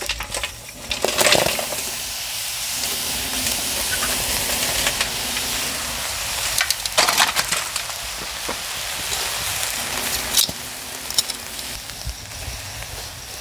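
Burning lump charcoal tipped from a metal chimney starter into a hollowed watermelon: the coals clatter out with a few sharp knocks over a steady crackling hiss, which eases off near the end.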